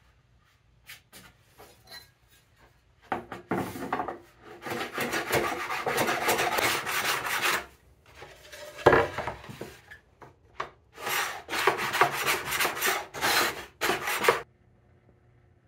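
Hand plane run on its side along a shooting board, trimming the edge of a wooden panel in a series of strokes, with pauses between them. A few light knocks come first as the board is set against the fence.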